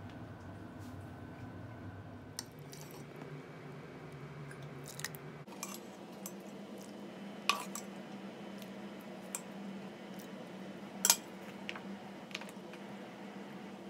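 Kitchen handling sounds over a steady low room hum: scattered light clicks and two sharp clinks, the louder one about three quarters through, as cooked dried peas are put into a glass bowl.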